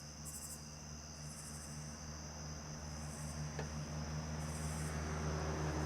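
Night insects calling: crickets chirping in short pulsed trains about once a second over a steady high trill, with a steady low hum underneath.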